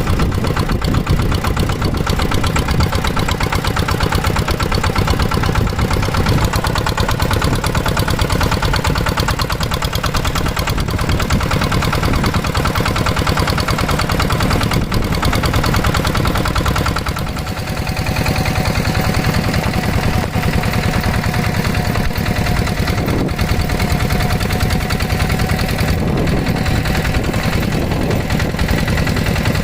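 Two-wheeled hand tractor's single-cylinder diesel engine running steadily under load. About two-thirds of the way through it briefly dips, then runs on with a slightly changed, steadier note.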